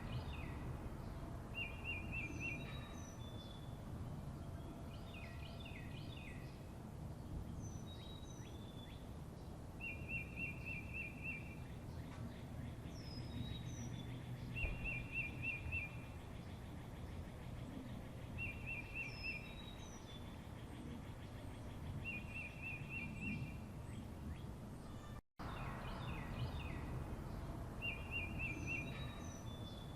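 Songbirds singing: one bird repeats a short, even trill of about a second and a half every few seconds, with higher chirps from other birds in between. A steady low rumble runs underneath, and the sound drops out for an instant near the end.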